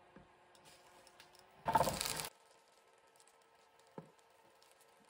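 Soaked tteokbokki rice cakes going into a hot, sesame-oiled frying pan on an induction cooktop: a loud burst of sizzling of about half a second that cuts off suddenly. A single light knock comes near the end, over a faint steady hum.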